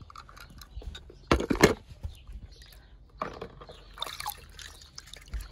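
Water splashing as a small toy car drops into a plastic tub of water, loudest about a second and a half in, with a few smaller splashes after.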